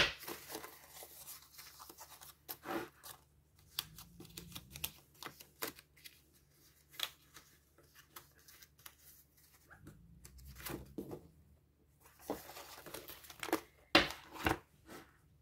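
Paper handling: planner pages rustling, tapping and being turned, with scattered small clicks and a louder run of page-flipping rustles near the end.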